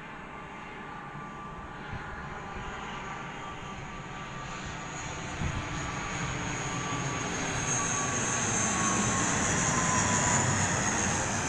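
ATR 72-500 twin-turboprop airliner on landing approach, its engines and propellers droning steadily louder as it nears and passes close by, with a high whine that falls slightly in pitch near the end.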